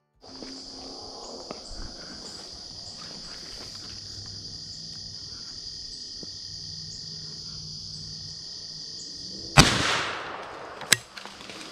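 Steady high-pitched chorus of insects, broken near the end by a single .410 shotgun shot whose report trails off over about half a second, then a short sharp click about a second later.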